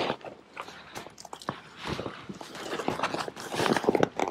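Tent fabric and a clear plastic window panel rustling and crinkling in irregular bursts, with small clicks, as the front wall of a caravan awning is pulled into its keder rail by hand.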